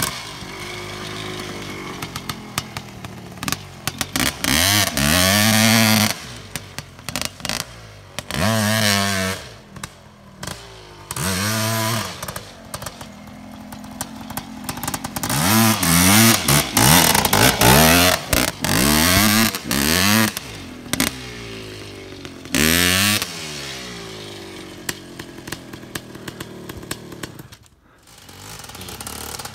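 Dirt bike engine being ridden hard, revving up and down over and over: its pitch climbs with each burst of throttle, then drops, many times.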